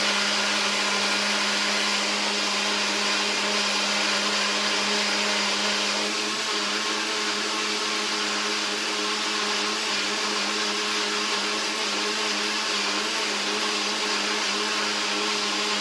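Blender running steadily, blending a smoothie of banana, oats, yogurt, spinach and blueberries with water: an even motor hum over the churn of the mixture.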